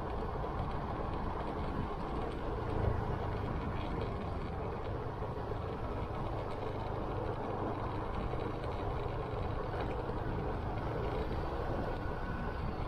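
Motorcycle running steadily at road speed: a low engine hum under a steady noise of wind and tyres.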